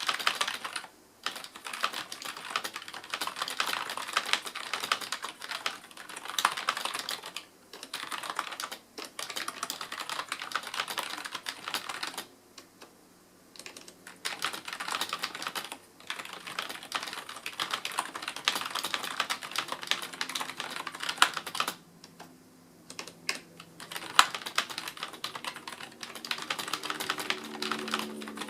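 Typing on a CM Storm Devastator membrane gaming keyboard: quick runs of key clicks broken by a few short pauses.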